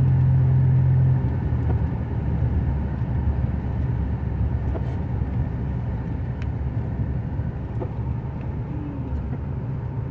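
Engine and road noise heard from inside a moving truck's cab: a steady low rumble that drops in level about a second in. A few faint ticks sound over it.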